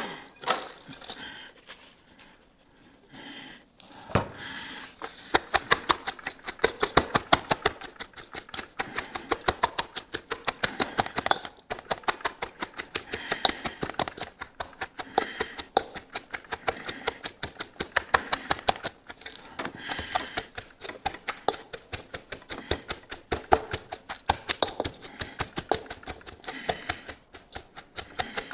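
A hand tamper pounding salted, shredded red cabbage in a stainless steel bowl: a steady run of quick thuds, several a second, starting about four seconds in. The cabbage is being tamped down to draw out its juice so the brine covers it.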